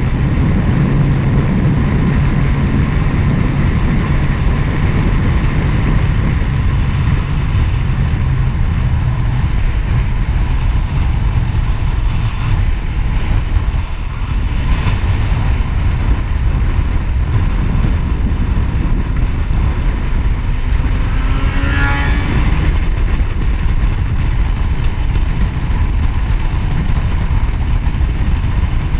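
Motorcycle riding at road speed: steady wind noise on the mount-camera microphone over the engine's hum, with a short rising whine about two-thirds of the way in.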